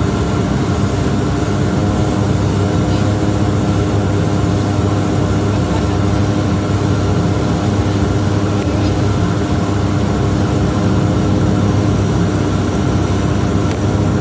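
Cabin sound of a Bombardier DHC8-Q400's turboprop engines and propellers running steadily during taxi: an even drone with a low hum and several fixed tones.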